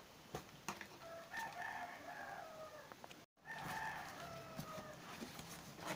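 A rooster crowing, two long drawn-out calls that fall slightly in pitch at the end. A few faint taps from cardboard box handling come before the crows.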